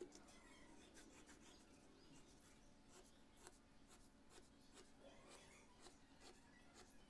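Faint scratching of a pen drawing lines on paper along a plastic protractor used as a ruler, in short strokes at irregular intervals.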